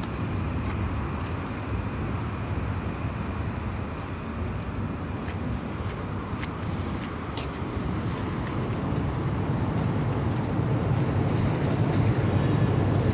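Steady low outdoor rumble that grows a little louder toward the end, with a few faint clicks around the middle.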